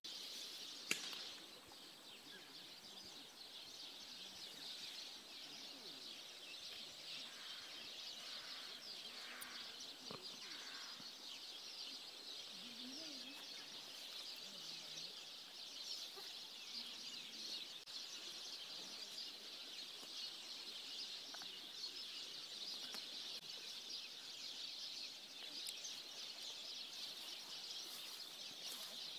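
A steady, dense chorus of high-pitched chirping, with one sharp click about a second in.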